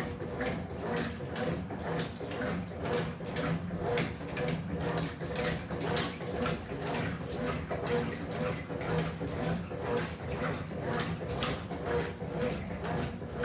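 Electrolux LF75 top-loading washing machine agitating a load in water: the motor hums steadily while the agitator swishes the water back and forth about twice a second.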